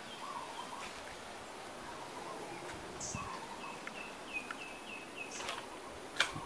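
Birds calling outdoors: a few low calls, then a quick run of about eight short chirps, about four a second, from a bit after halfway. Two sharp clicks come near the end.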